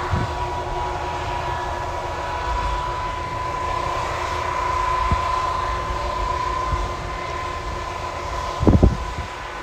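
Large farm tractor pulling an air drill while seeding, its diesel engine running steadily under load with a steady high whine over it. Two or three low thumps come near the end.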